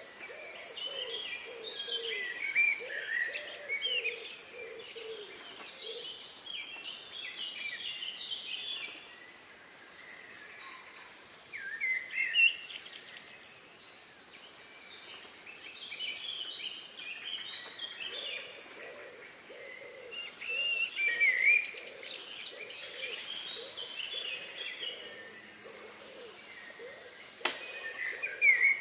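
Evening birdsong: several birds singing short, twittering phrases in bunches, over a low call repeated a few times a second. A single sharp click near the end.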